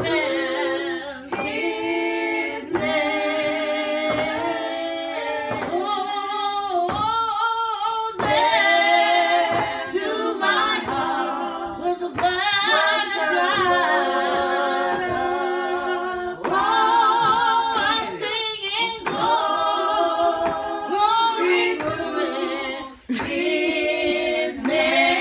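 Voices singing a cappella in harmony, held notes with vibrato in phrases broken by short pauses.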